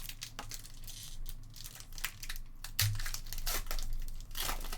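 Trading cards being flipped through and handled, with the crinkle and rustle of opened pack wrappers and a series of sharp card flicks.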